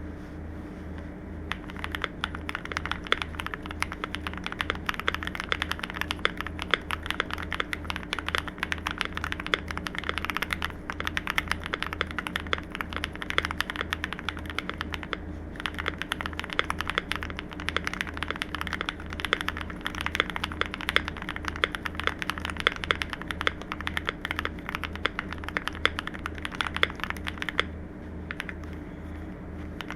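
Fast, continuous typing on a CIDOO V65 V2 custom mechanical keyboard with lubed Akko CS Matcha switches, an FR4 plate, tape mod and ABS doubleshot keycaps. The typing starts about a second and a half in and pauses briefly about halfway through and again near the end, over a steady low hum.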